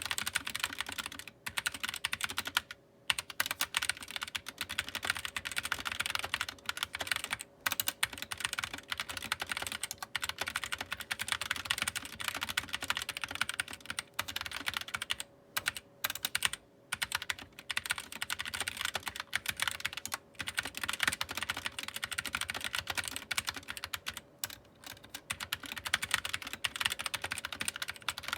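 Fast typing on a GK61 60% mechanical keyboard with optical switches: a dense, continuous stream of key clicks broken by a few short pauses.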